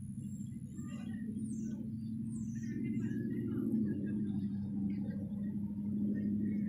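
Small birds chirping in short calls and quick falling notes over a steady low hum that swells slightly about three seconds in.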